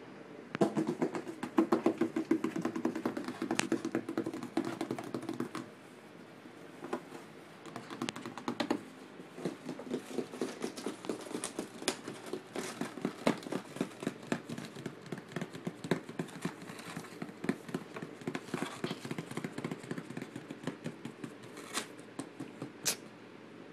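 Rapid scratching and tapping on a cardboard box, many small clicks in quick succession. It is loudest for the first few seconds, pauses briefly, then carries on more lightly, with two sharp clicks near the end.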